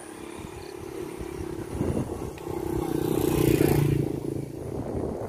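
Motorcycle engine running with a steady drone that grows louder to a peak about three seconds in, then eases off.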